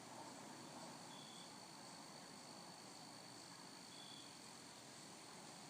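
Faint insect sounds: a steady high-pitched drone, with a short chirp twice, about three seconds apart.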